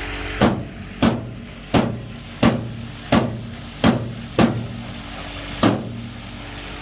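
Eight sharp knocks in an even rhythm, about one every two-thirds of a second, the last coming after a short pause, over a steady engine hum.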